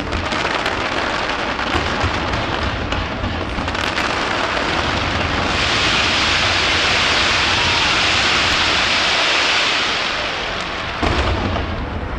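Fireworks going off in a dense barrage: low booms under a rain-like crackle that swells to a steady hiss from about halfway through, then a sharp bang near the end.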